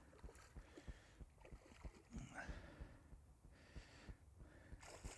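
Near silence: faint outdoor background with scattered soft low knocks.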